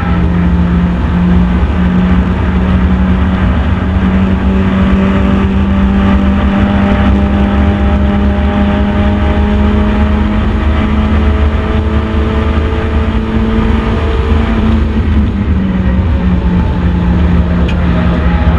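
First-generation Mazda MX-5 race car's four-cylinder engine running hard on track, with road and wind noise. The engine note climbs slowly over a long stretch, then drops sharply about fifteen seconds in and carries on steady.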